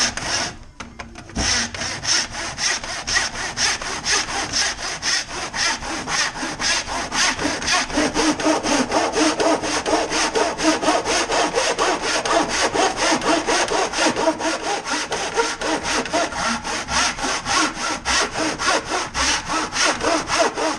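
Millers Falls 28-inch miter box saw, recently sharpened, cutting a wooden board to length by hand. Steady, even back-and-forth strokes make a rhythmic rasp that begins about a second and a half in.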